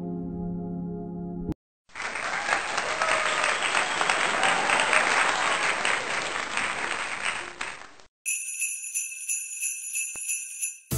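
Soft ambient music ends about a second and a half in, followed by about six seconds of recorded applause. Near the end comes a high tinkling, jingle-like sound effect.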